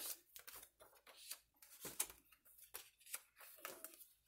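Pages of a handmade junk journal turned by hand: a series of faint, short papery rustles and flicks, the loudest about two seconds in.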